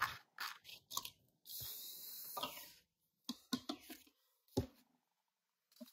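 Scissors cutting a sheet of transfer tape: a few short snips, then one smooth sliding cut lasting just over a second, followed by a few light taps and rustles as the trimmed piece is handled.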